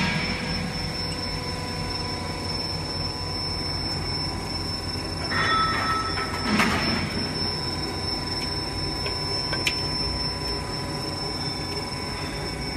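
Roll forming machine running, its steel forming rollers and chain drive giving a steady mechanical drone with a constant high whine. A brief metallic squeal comes about five and a half seconds in, a clank about a second later, and a small click near the end.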